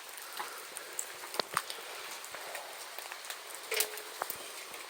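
Heavy rain falling: a steady hiss of rain with scattered sharp drips and patters.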